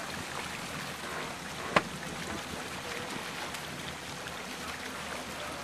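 Motorboat idling on the water, a steady hum mixed with wind and water noise, with one sharp knock about two seconds in.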